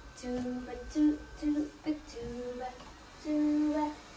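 A woman humming a wordless tune: a series of short held notes at changing pitch, with one longer note about three seconds in.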